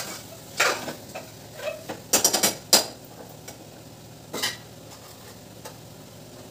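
Metal ladle stirring curry in a stainless steel pressure cooker pot: a run of scrapes and clanks against the pot through the first three seconds, then one more knock a little after four seconds, over a faint steady hiss.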